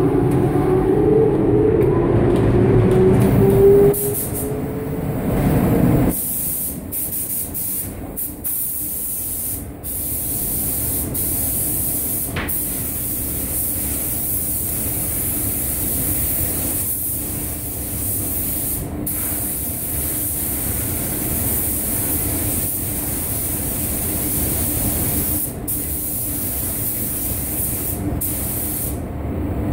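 Air-fed paint spray gun hissing as it sprays paint onto car doors. The spray runs in long passes, broken by short gaps when the trigger is let off. The first few seconds hold a louder rising hum before the spraying starts.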